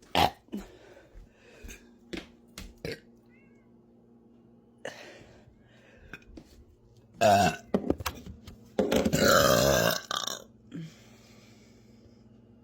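A woman burping: a few short sounds in the first seconds, then two loud, deep burps about seven and nine seconds in, the second drawn out for about a second.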